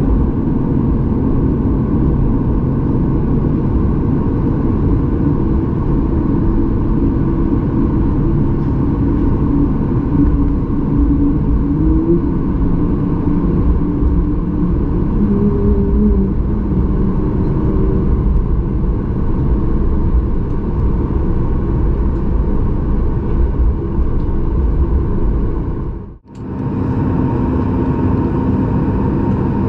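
Steady rumble and hum inside the cabin of a Boeing 737 MAX 8 on the ground before takeoff. The sound drops out for a moment about 26 seconds in and then carries on.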